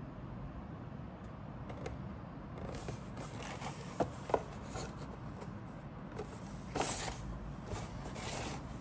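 Cardboard model kit box handled and turned over by hand: rubbing and scraping of the cardboard, with two light knocks about four seconds in and the loudest scrape a little before seven seconds.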